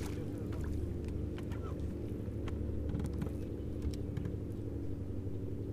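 A steady low mechanical hum, typical of a boat motor, with a few faint clicks and small splashes as a bass is reeled in on a baitcasting reel and thrashes at the surface.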